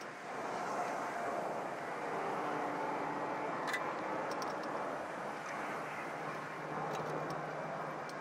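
A steady engine drone whose pitch drifts slowly, with a few faint clicks.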